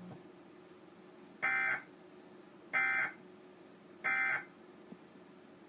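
Emergency Alert System end-of-message signal: three short bursts of SAME digital data tones, just over a second apart, marking the close of the alert.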